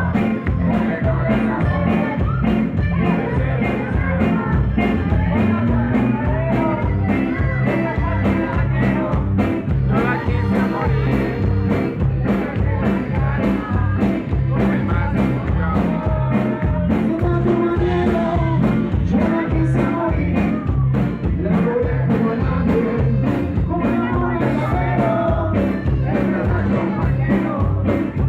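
Rock music with singing over a steady beat, played loud.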